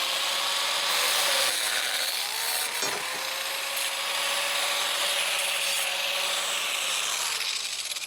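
Angle grinder with a cutoff wheel cutting through a steel bolt, the head being cut off: a steady motor whine under a hissing grind. The whine sags briefly about three seconds in and the cut eases off near the end.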